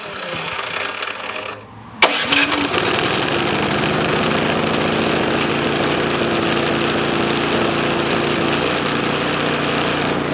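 Snow blower's 208cc single-cylinder engine, the standard non-quiet model: the engine sound drops off, there is a short gap, then about two seconds in the engine starts abruptly and runs steadily at speed.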